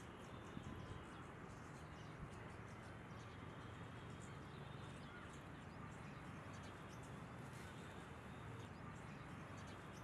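Faint outdoor ambience with a low steady hum, and many brief, faint high chirps of small birds scattered throughout.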